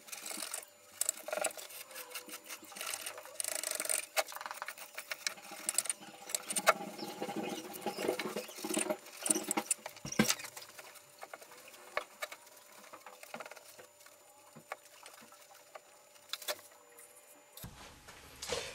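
Knife cutting and tearing insulation wool out of the opening of a small propane forge's steel shell: irregular scratching and rasping with small clicks, stopping near the end.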